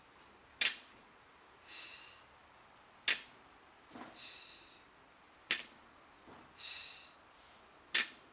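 Barbell deadlift reps at a steady pace, about one every two and a half seconds: each rep brings a sharp tap as the 85-pound bumper-plate barbell touches down, then a breathy exhale about a second later as the lifter stands up with it. Four reps.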